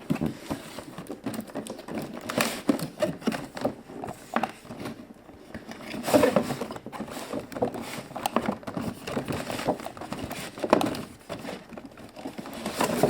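A toy box being opened and its plastic pieces and packaging handled: irregular knocks, clicks and rustles.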